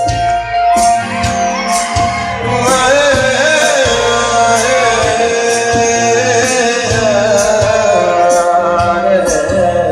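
Live band music with a male singer performing an Assamese song, over a steady beat with regular cymbal strikes. A held instrumental note carries the opening, and the wavering sung line comes in about two and a half seconds in.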